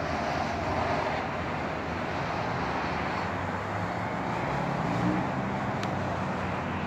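Road traffic: cars driving past on the road, a steady rush of tyre and engine noise.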